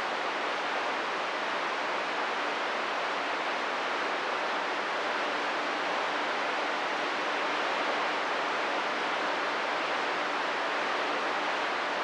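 Steady hiss of radio static from a CB receiver between transmissions, with a faint steady hum underneath.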